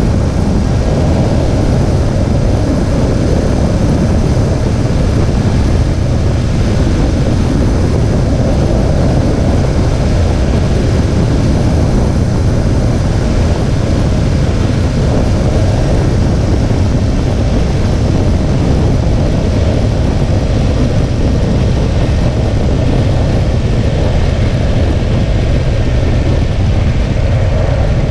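Steady driving noise from a 2017 Infiniti Q50 on the move: road, wind and engine sound under a deep, constant rumble, with no change in speed or load.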